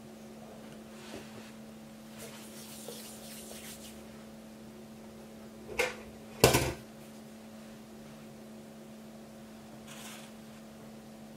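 Two short knocks about six seconds in, a little over half a second apart, the second much louder, from things being handled on a kitchen worktop, over a steady low hum.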